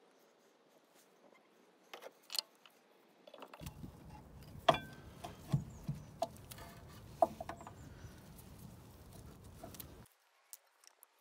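Scattered metallic clicks and knocks as a rear brake caliper is handled and fitted over its pads and disc. From about four to ten seconds in, a low steady background rumble sits under them and cuts off suddenly.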